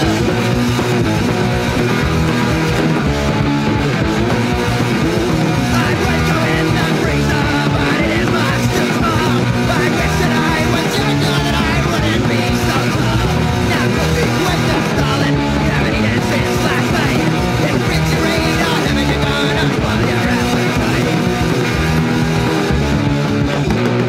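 Punk rock recording: a stretch of full-band playing without vocals, led by electric guitar, loud and steady throughout.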